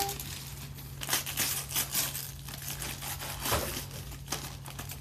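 Wrapping paper being torn and crumpled off a present by hand, in a run of irregular rips that starts about a second in.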